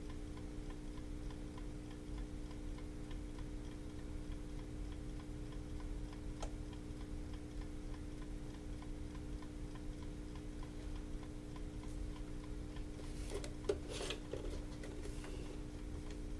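Low steady electrical hum with faint, regular ticking. A single click comes about six seconds in, and there is a short burst of handling noise near the end.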